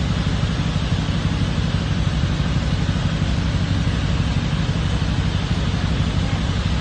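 Ferry's engines running with a steady low rumble under an even hiss.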